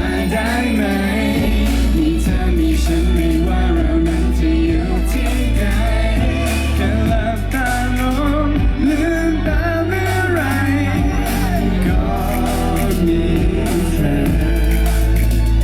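Live pop music: a band with a heavy, steady bass line and a sung melody over it.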